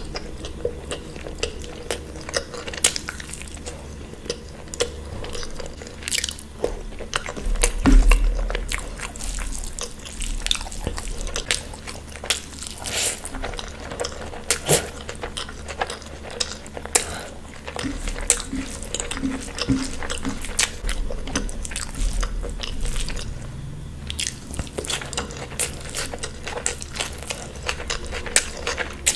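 Close-miked eating: irregular biting, chewing and crunching of food with wet mouth clicks, and one louder low thump about eight seconds in.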